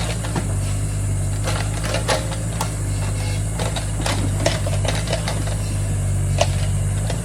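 Excavator's engine running steadily while the machine digs soil, with irregular sharp clicks and clanks from the working machine, a few a second.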